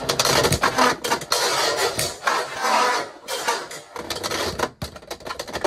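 Two Beyblade X tops, Tyranno Beat 4-80 Rush and Dranzer S 9-60 Low Flat, spinning and clashing in a plastic stadium: a dense run of rapid clacks and rattles as the blades strike each other and the stadium walls, with brief lulls about three seconds in and again near the end.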